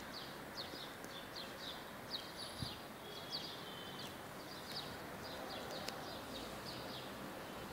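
Small birds chirping in quick runs of short, high calls over steady outdoor background noise, with one soft low thump about two and a half seconds in.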